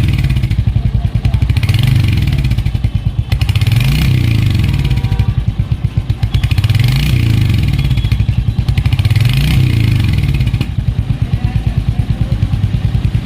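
Royal Enfield Hunter 350's single-cylinder engine and exhaust being revved several times by hand, each rise in revs falling back, then settling to a steady thumping idle about ten seconds in.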